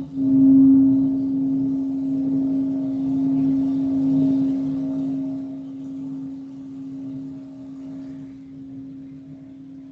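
Singing bowl sounding one sustained low tone with a slow wavering beat and a fainter ring above it. The tone swells just after the start, holds for a few seconds, then slowly fades away.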